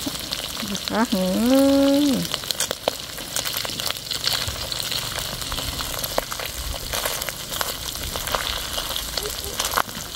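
Small fish sizzling in hot oil with dried red chillies in a large wok, stirred with a bamboo stick, with light scrapes and clicks against the pan. About a second in, a single held call, roughly a second long, rises above the frying.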